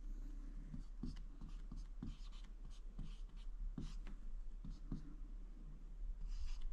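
Marker pen writing on a white board: a string of short, faint strokes and small taps as symbols are drawn.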